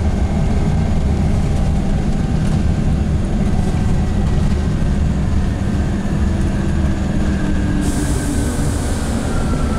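Cabin noise of a KAMAZ-6282 electric bus on the move: a steady low rumble from the road and running gear, with a faint whine from the electric drive. Near the end the whine falls slowly in pitch as the bus slows, and a hiss comes in.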